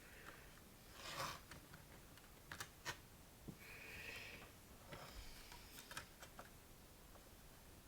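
Plastic DVD box-set packaging being handled: a few sharp clicks and taps with a short rustle about a second in and a longer swish in the middle.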